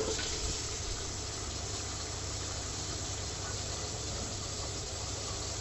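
Kitchen tap running into a Granitek composite sink, the water rushing steadily down the drain through the newly fitted plastic trap, heard from beneath the sink: a first run of water to test the new drain for leaks.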